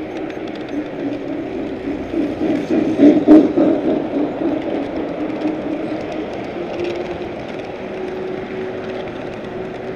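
Large-scale model train rolling along its track, heard from a camera riding on the train: a steady rumble of wheels and running gear with a held whining tone. It swells louder for about a second around three seconds in.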